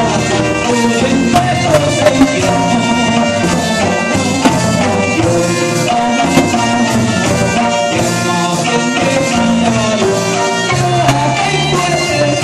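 A man singing through a microphone and PA speaker, backed by a small live band with electric guitar and keyboard, playing a steady rhythm.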